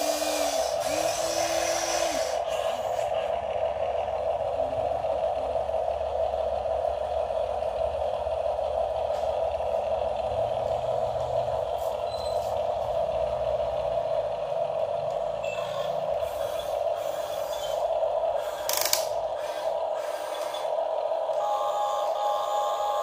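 Electric gear motors of a Huina radio-controlled excavator whining steadily as the boom and arm swing and lift, with a single sharp click near the end.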